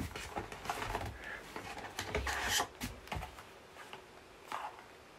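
Cardboard packaging being handled: a small box is scraped and slid out of a larger cardboard box, in a run of short scratchy rubbing strokes that die down after about three seconds, with one more near the end.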